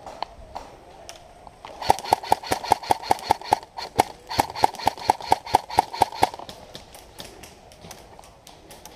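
Airsoft electric rifle, a Valken Battle Machine, firing a rapid string of shots at about six or seven a second, each a sharp crack with a short ring. There are two runs with a brief pause between them near the middle.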